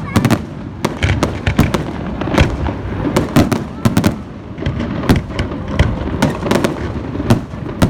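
Fireworks display: a dense, irregular run of bangs and crackles from bursting shells, several each second without a break.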